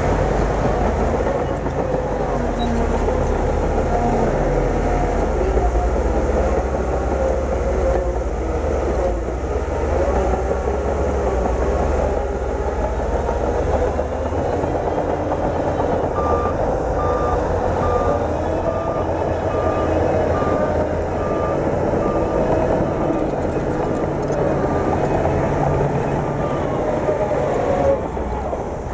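Bulldozer's diesel engine running hard with a steady heavy rumble. About halfway through, a reverse alarm starts beeping at an even pace for some ten seconds, the sign of the machine backing up.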